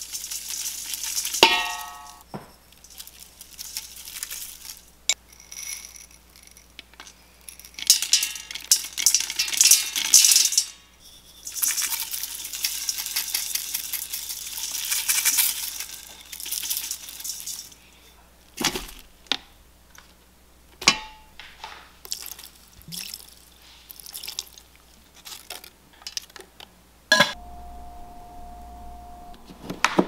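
Dried herbs and salt poured from glass jars into the stainless steel insert of an electric pressure cooker: two long rattling, hissing pours, followed by scattered clinks and taps of jar and utensils against the metal pot. Near the end a steady hum with a faint held tone sets in.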